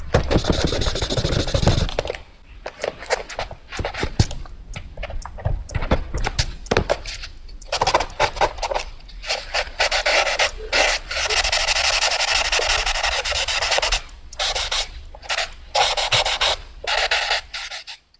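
Fast drawing on paper: quick scratchy strokes of a drawing tool rubbing across the sheet in short, stop-start runs, with one longer continuous scribble a little past the middle.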